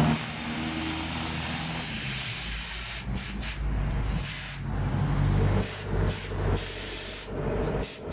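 A steady hiss for about three seconds, then low rumbling that breaks off briefly several times.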